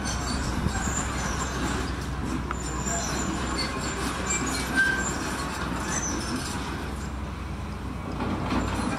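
A steady low rumble and hiss of outdoor background noise, with a few faint high chirps.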